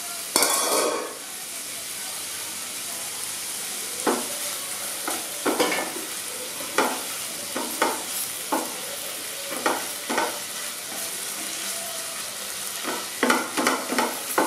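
Cauliflower frying in a non-stick pan with a steady sizzle while a wooden spatula stirs and scrapes it in separate strokes, coming closer together near the end. A louder rush lasting under a second comes near the start.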